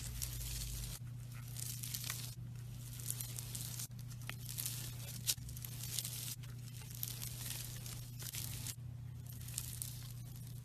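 Slime being pressed and stretched by hand, crackling and popping in stretches of a second or two, over a steady low hum.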